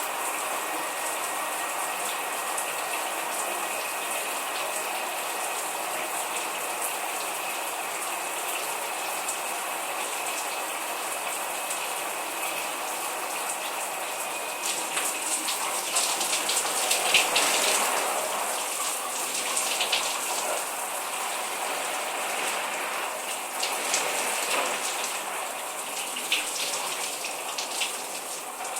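Shower running, a steady spray of water. About halfway through, the falling water turns louder and uneven, with splashes and sharp drips, as someone bathes under it.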